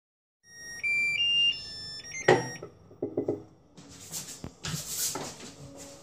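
Hitachi BeatWash washing machine's control panel playing a short tune of electronic beeps that step up and then down in pitch. The beeps are followed by a sharp click about two seconds in, a few knocks, and then rustling and clattering.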